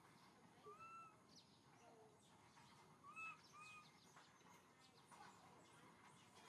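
Near-silent ambience with three faint, short, arched animal calls: one about a second in, then two in quick succession around three seconds in.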